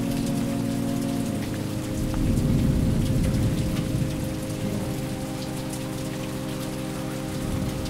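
Steady rain falling, with individual drops heard through the hiss, over low sustained ambient music tones. A low rumble swells about two seconds in and fades by about four seconds.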